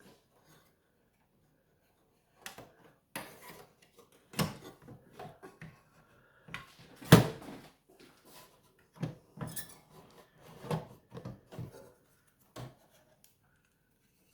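Irregular clicks, taps and knocks of hard plastic and metal computer parts being handled while a hard disk is unhooked from its bay, with one louder knock about seven seconds in.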